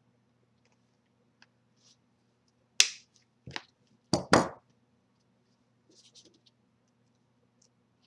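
Rotary hole punch pliers squeezed through a cardboard cutout, re-punching a hole the first squeeze didn't cut all the way through: four sharp snapping clicks within about two seconds, followed by faint rustling of the board.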